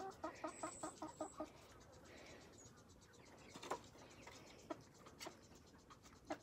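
Chickens clucking softly, a quick run of short clucks in the first second and a half, followed by a few faint, scattered pecking taps as they feed.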